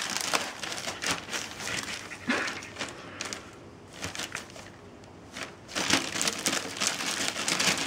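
Clear plastic sheeting crinkling and crackling as a Shetland sheepdog tugs at it with its mouth, in irregular rustles that thin out for a couple of seconds in the middle and pick up again near the end.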